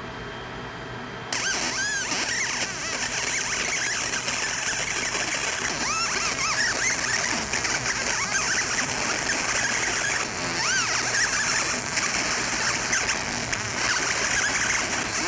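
Fiber laser deep-engraving stainless steel at high power, starting suddenly about a second in. It makes a loud steady hiss and crackle as the metal is burned away in a shower of sparks, with short squealing tones that rise and fall over and over as the beam traces the design.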